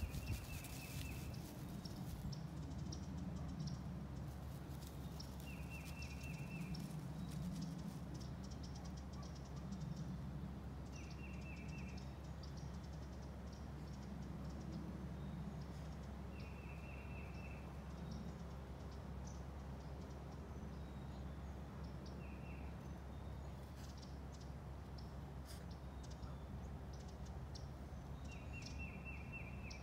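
A bird repeating a short, rapid trill about every five to six seconds, with faint scattered chirps and a low steady hum of outdoor background underneath.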